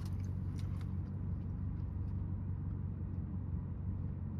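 Steady low hum of a parked BMW's engine idling, heard inside the car's cabin, with a few faint ticks in the first second.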